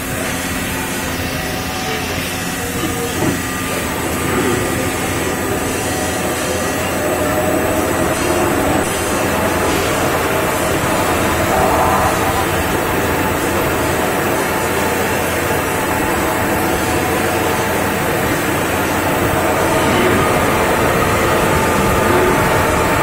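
A 4-axis CNC special-purpose drilling and tapping machine running, its spindles drilling holes in a pressed metal tray clamped in its fixture. The result is a steady mechanical din with several steady tones that grows a little louder over the first few seconds.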